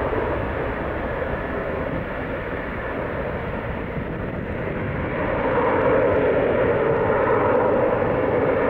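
Tupolev Tu-154M's three Soloviev D-30KU-154 turbofans at takeoff power as the jet lifts off and climbs away: steady jet engine noise with deep rumble, growing louder about five seconds in.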